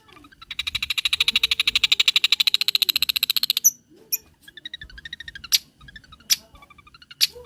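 Long-tailed shrike (cendet) song with mimicked filler material: a fast, high buzzing trill lasting about three seconds that grows louder, then loud sharp single notes mixed with short whistled phrases.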